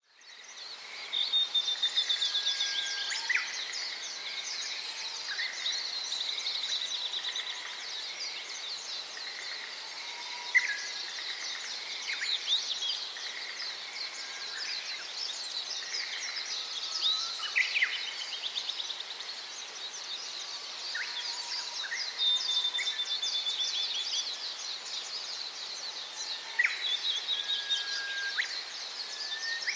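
A group of Gouldian finches chirping and twittering continuously, many thin high calls and short rapid trills overlapping, with now and then a louder sharp chirp.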